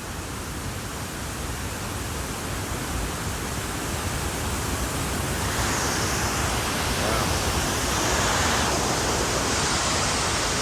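Waterfall's falling water making a steady rushing noise that grows gradually louder.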